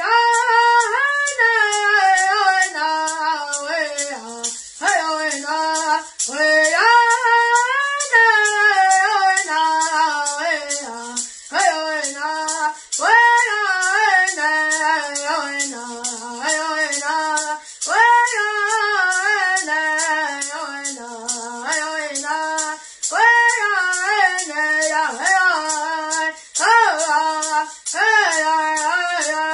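A boy singing a Hopi corn dance song solo, the melody moving in phrases that start high and step downward. He keeps time with a hand rattle shaken in a steady beat.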